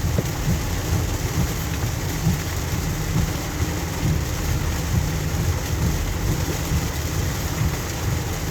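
Heavy rain falling on a moving car, heard inside the cabin, over the steady low rumble of the car driving on the wet road.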